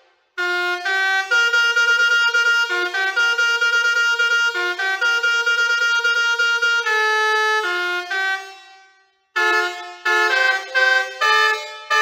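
Basuri 4.0 six-trumpet musical air horn playing melodies. A tune of mostly long held notes fades out about eight seconds in, and after a brief gap a new tune of short, quick notes starts.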